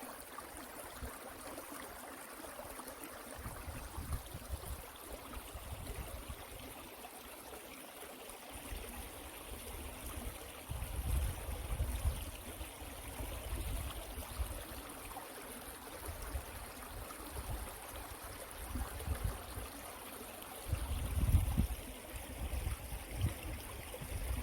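Small stream running with a steady trickling rush of water, and low rumbles of wind on the microphone now and then, strongest about halfway through and near the end.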